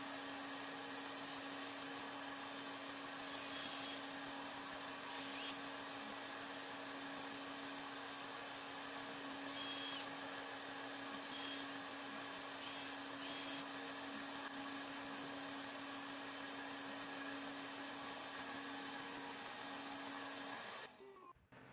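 Steady electric motor hum holding one pitch, with a few faint ticks over it, cutting off suddenly near the end.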